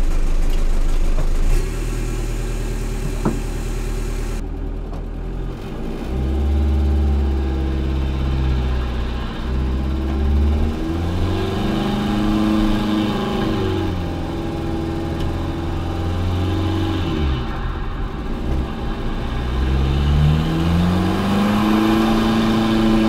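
1.9L ALH TDI four-cylinder turbodiesel, heard from inside the car's stripped cabin, idling just after start-up and then pulling away. Its revs climb and drop several times as it accelerates through the gears. It runs without the knock it had before, now on newly fitted large-nozzle injectors.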